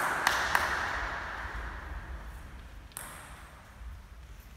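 The last strokes of a table tennis rally: the ball clicks sharply off paddles and table about three times a second and stops about half a second in. A hiss fades away over the next two seconds, and a single knock follows about three seconds in.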